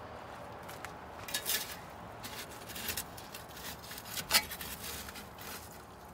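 Tool scraping and knocking inside a wood boiler's firebox as ash and coals are raked out, in short irregular strokes with one sharper clink about four seconds in.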